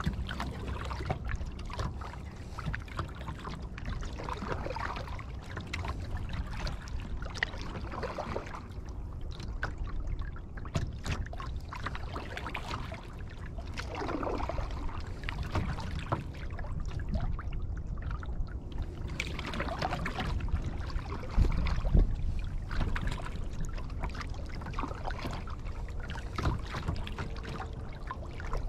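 Kayak paddling: the paddle blade dips and pulls through the water every few seconds, with water trickling along the hull over a steady low rumble. A single louder knock comes about three quarters of the way through.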